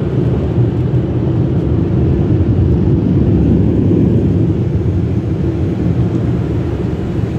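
Tunnel car wash air dryer blowers running: a loud, steady rush of air, heard from inside the car.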